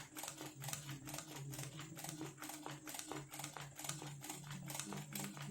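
Zigzag sewing machine running steadily for free-motion embroidery, its needle bar clicking about six times a second over the motor's hum.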